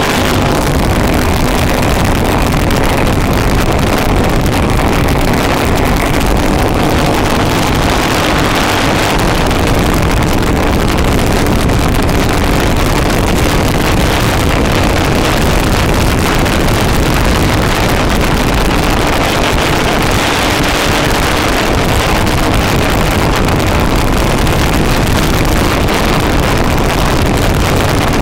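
Racing go-kart engine running hard at speed, heard from a camera mounted on the kart, with wind buffeting the microphone. Steady and loud throughout.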